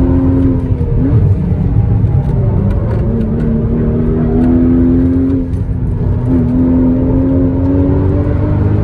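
Porsche Cayman S 981's 3.4-litre flat-six engine under way at varying revs. The pitch jumps up and back quickly about a second in, holds high, eases off a little past the middle, then drops suddenly and climbs steadily toward the end.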